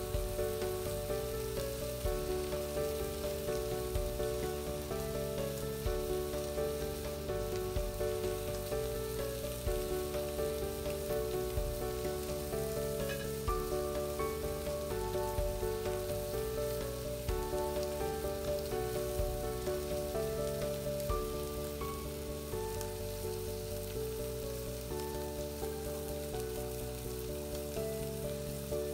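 Background music, a gentle melody of evenly paced notes, is the loudest sound. Under it, beef chuck eye steaks sizzle steadily as they sear in a hot frying pan.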